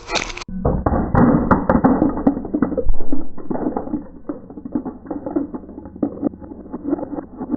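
Crunching and cracking slowed right down: a dense run of deep, drawn-out cracks as a brittle object is crushed in super slow motion, loudest in the first few seconds.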